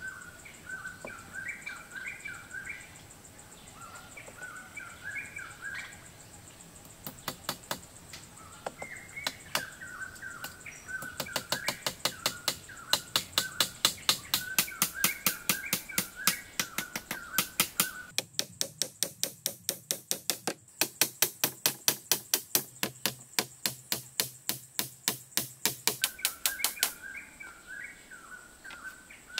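Birds chirping in short repeated phrases. From several seconds in, a fast, regular series of sharp knocks or taps, about two to three a second, takes over as the loudest sound and stops shortly before the end.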